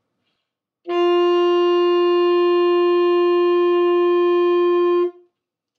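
Alto saxophone playing one long held note of about four seconds, steady in pitch and rich in overtones, that ends cleanly; a long tone that the player himself rates as only okay, short of a professional sound.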